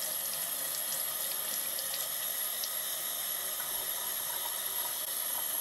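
Kitchen faucet running steadily into a stainless steel sink as a makeup sponge is rinsed and squeezed under the stream.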